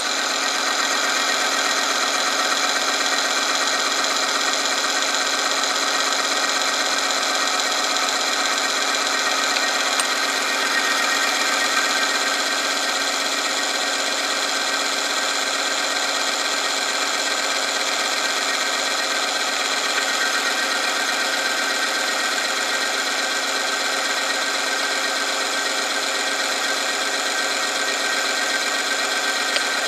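Oil friction test machine running: its electric motor turns a shaft in a bath of 10W40 engine oil heated to 100 °C, while a weighted lever presses the test sample against it. It gives a steady mechanical whine with grinding.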